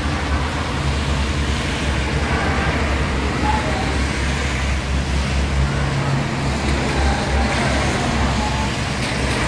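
Steady low outdoor rumble with faint, indistinct voices of a gathered crowd.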